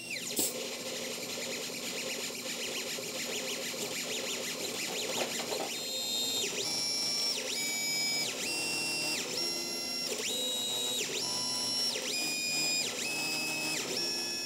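AxiDraw pen plotter's stepper motors whining as the pen carriage moves. The high tones jump between several pitches, gliding up and down at the start and end of each move, with a new move every half second to a second.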